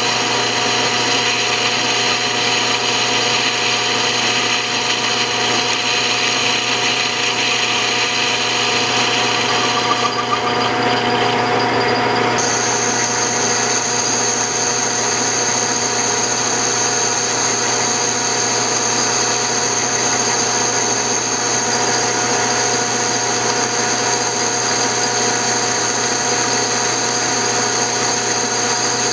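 Metal lathe running and turning a steel shaft with a carbide insert, a steady machine whine with cutting noise from the tool in the cut. About twelve seconds in the sound shifts and a high steady whistle comes in and stays.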